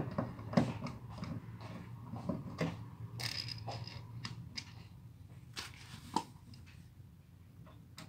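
Screwdriver turning a wall outlet's metal mounting screw: irregular small clicks and metal-on-metal scrapes, a few of them sharper.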